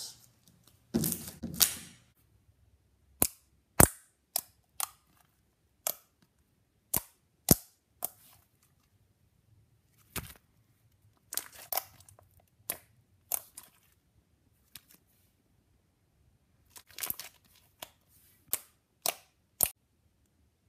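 Green slime being stretched, folded and poked against a wooden tabletop, giving a scattered run of sharp pops and clicks (its poking sounds), some single and some in quick clusters.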